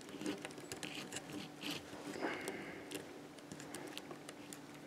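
Faint, scattered clicks and scrapes of small plastic quadcopter parts being handled, as the FPV camera is worked against its tight plastic mount.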